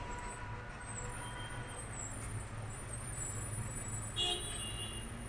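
Steady low background hum, with one brief, faint high-pitched sound about four seconds in.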